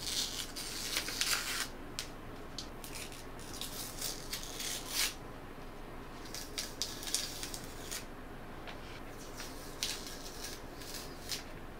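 Clear protective plastic film being peeled off glossy speaker fronts, crackling and rustling in several short spells with pauses between.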